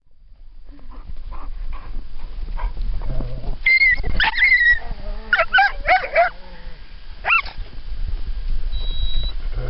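Dogs yipping and whining in a run of short, pitch-bending calls from about four to seven and a half seconds in, over a steady low rumble.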